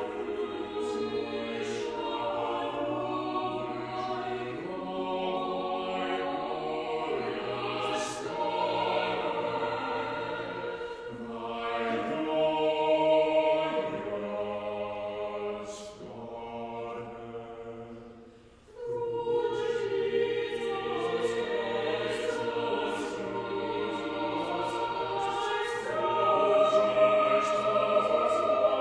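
Small church choir of mixed men's and women's voices singing in parts, with a brief break about two-thirds of the way through before the next phrase begins.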